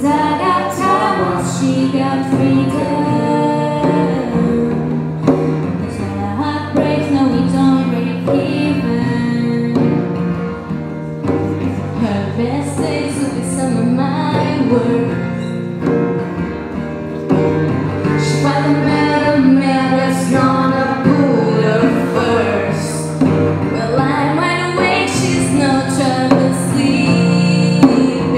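A young woman singing a pop song to her own strummed Takamine acoustic guitar, with hand drumming on a djembe keeping the beat.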